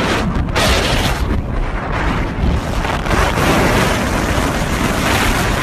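Wind rushing over and buffeting a phone's microphone on a moving bike ride, a loud, uneven rush that surges and dips.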